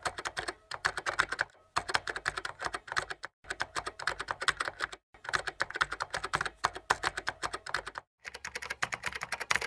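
Rapid typing on a keyboard, runs of quick keystrokes broken by four short pauses, in step with text appearing letter by letter.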